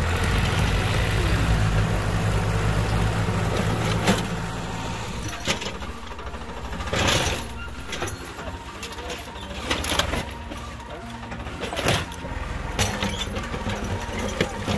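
Two diesel tractor engines, a Massey Ferguson 7250 DI and a Farmtrac, running hard under load. From about four seconds in, a series of sharp metal clanks and crunches as a motorcycle is dragged and torn apart through the dirt between them.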